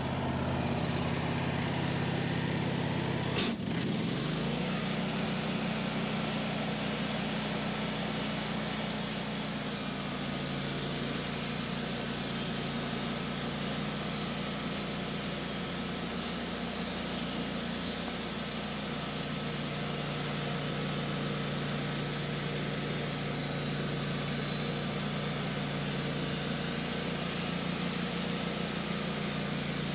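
Engine of a Wood-Mizer LT15 Wide portable band sawmill running. About three and a half seconds in it jolts and rises in pitch, then runs steadily at a higher speed.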